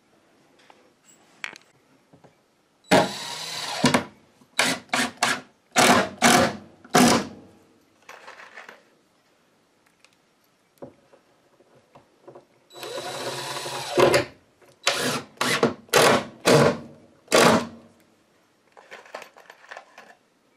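Cordless drill driving screws into the wooden window support frame: twice, a run of about a second followed by five or six short trigger bursts.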